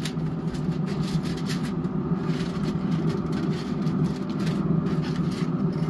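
Aluminium foil crinkling in short bursts as it is peeled back from a foil pan, over a steady low mechanical hum.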